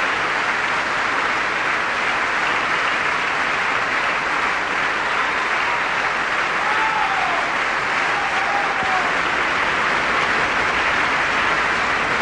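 Large audience applauding steadily at the end of a song, a dense even clapping. A few faint calls rise out of it about seven and eight seconds in.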